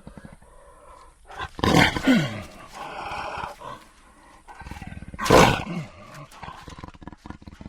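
Jaguar roaring twice, about three and a half seconds apart, each call dropping in pitch, with a quieter rough growl between them.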